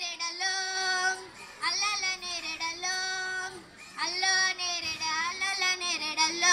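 A girl singing a melody into a microphone, in held phrases of a second or two with short breaks between them.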